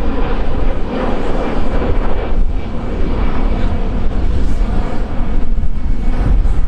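Airbus A320 jet engines running at high thrust on a go-around, heard as a continuous loud rumble with a faint steady whine. Strong wind buffets the microphone.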